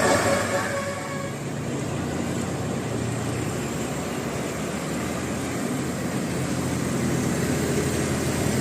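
Bus engine running steadily, a low hum under road noise; higher horn-like tones from just before fade out about a second in.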